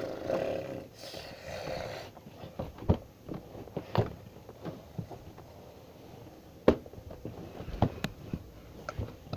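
Handling and movement noise right beside the microphone: rustling for the first two seconds or so, then about half a dozen sharp knocks and bumps spread irregularly through the rest.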